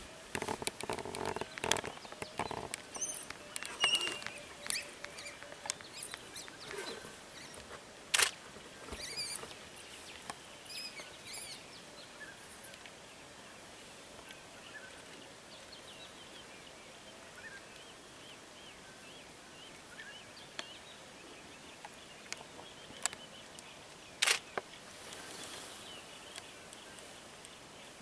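African wild dogs twittering in short high chirps, mostly the excited puppy, as they feed on a carcass, with sharp clicks and crackles. The chirping is busiest in the first half and fades to faint chirps later.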